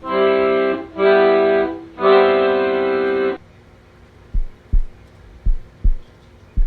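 Background music: three held organ-like keyboard chords, then a low thumping beat of paired bass hits that starts about four seconds in.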